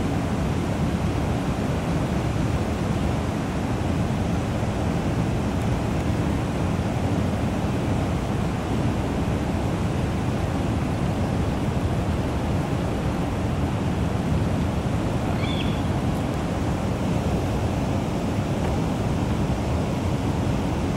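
Steady rushing of water at a dam tailwater, even throughout, with a brief high chirp about fifteen seconds in.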